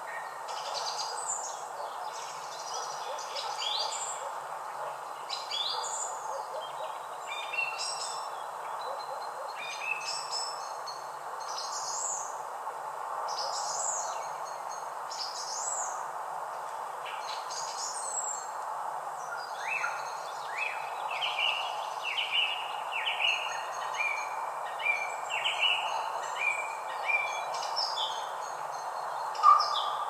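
Songbirds singing: many short high chirps and whistles over a steady background hiss, with one bird repeating a run of short falling notes through the last third.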